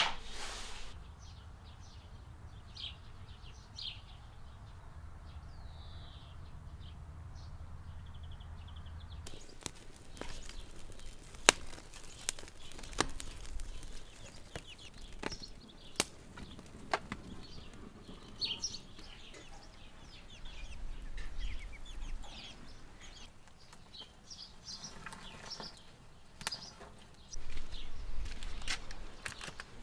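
Small birds chirping over a low background rumble. After a cut, sharp irregular cracks and snaps of dry twigs burning as they are fed into a wood fire under a cooking pot.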